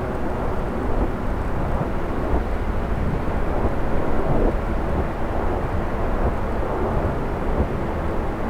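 A low, rumbling drone from the sky, rising and falling slightly, heard through the steady noise of rain. It is an unexplained sound that came and went through the night.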